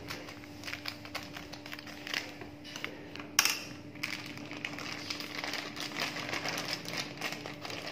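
Plastic tofu packet crinkling and crackling as it is cut open and handled on a wooden cutting board, with one sharp clack about three and a half seconds in. Near the end, fried tofu cubes tumble out of the packet onto the board.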